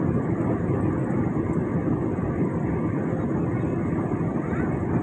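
Airliner cabin noise during the descent to landing: engines and rushing air heard from inside the cabin as a steady, unchanging low rumble.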